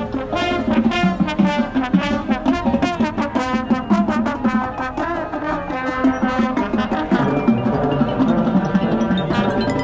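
Marching band playing: brass and woodwinds over drums in a quick rhythmic passage, moving into longer held chords about seven seconds in.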